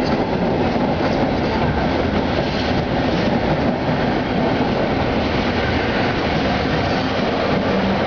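Passenger coaches of a night train rolling slowly past on the station track, wheels clattering over the rail joints, with the electric locomotive coming by near the end.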